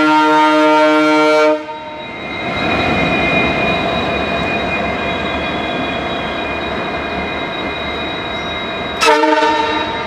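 EMD WDG4 diesel locomotive air horn sounding and cutting off about one and a half seconds in. The noise of the train running on the rails follows, with a faint high steady whine. A second short, loud horn blast comes near the end.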